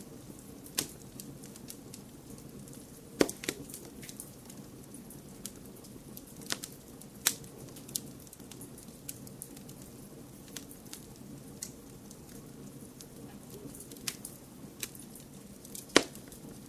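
Wood fire crackling in a fireplace: scattered sharp pops and snaps over a steady low noise bed, with the loudest pops about three seconds in and near the end.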